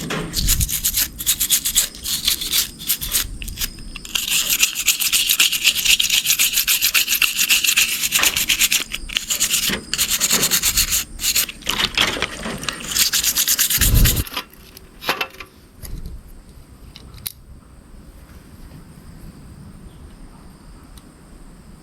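Brisk rubbing and scrubbing strokes on an RC car during cleaning, fast and loud for about fourteen seconds. The strokes then stop, leaving only a few light clicks of handling.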